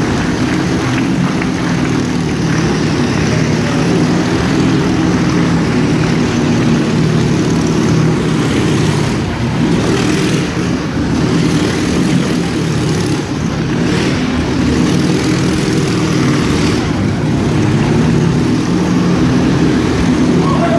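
Motorcycle engine running steadily as the bike laps the inside of a wooden wall-of-death drum, its sound pulsing slightly with each circuit.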